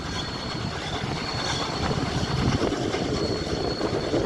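Steam-hauled train running on the rails, hauled by Class A1 locomotive 60163 Tornado: a steady, even rumble.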